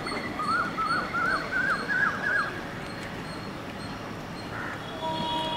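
A bird calling a series of about six whistled notes, each higher than the one before, in the first half. Near the end a steady tone sounds, holding several pitches at once.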